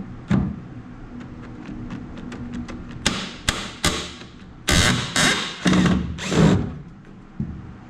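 Handheld power tool, a drill or driver, run in short bursts: one near the start, three quick ones about three seconds in, then four longer pulls close together in the second half.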